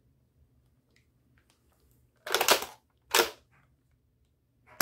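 Nerf Rival Kronos XVIII-500 spring blaster being primed: a rattly half-second pull about two seconds in, then a sharp clack as the priming handle snaps home. It fires with a sharp report right at the end.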